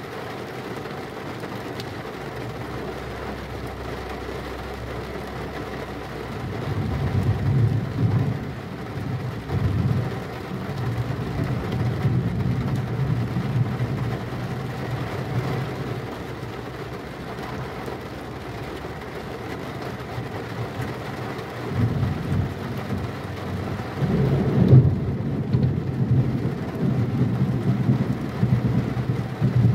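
Heavy rain falling steadily, with rolling thunder: low rumbles swell about a quarter of the way in and again through the last several seconds.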